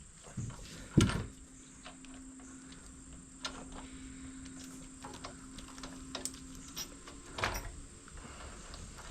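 Work on a motorcycle handlebar riser: scattered knocks and clinks of parts and tools being handled while the Loctited bolt is fitted. The loudest knock comes about a second in and another about seven and a half seconds in, with a faint steady hum between them.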